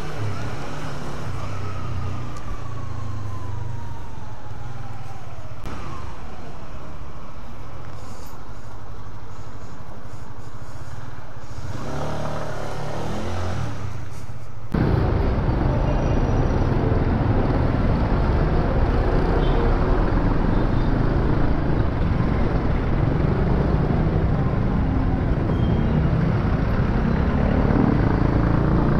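Honda CB150R single-cylinder motorcycle engine running while riding, heard from the rider's helmet, with a falling tone in the first few seconds as it slows. About halfway through the sound turns abruptly louder and rougher, with heavy wind rush over the microphone.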